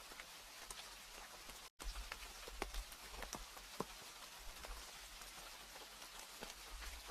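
Steady rain with scattered individual drops pattering and a low rumble beneath, broken by a split-second gap in the sound about two seconds in.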